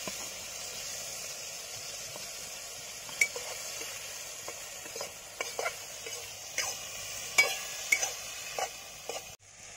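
Chopped tomatoes, onions and green chillies sizzling in ghee in an iron kadai, while a steel ladle stirs them and clinks against the pan several times from about three seconds in.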